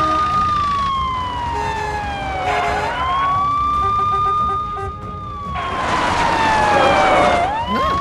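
Police car siren wailing: the pitch holds high, slides slowly down, then sweeps quickly back up, twice over. A rushing noise rises under it about two-thirds of the way through.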